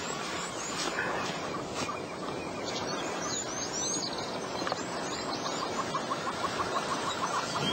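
Wild birds chirping, a quick run of short sweeping calls about three to five seconds in, over a steady outdoor hiss, with a fast ticking trill in the last few seconds.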